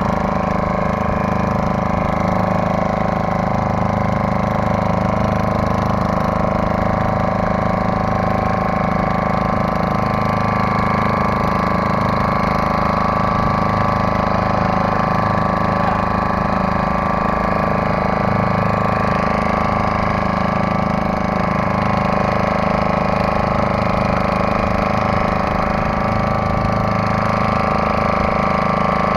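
Boat's outboard motor running steadily under way, a constant even drone that does not change in pitch or level.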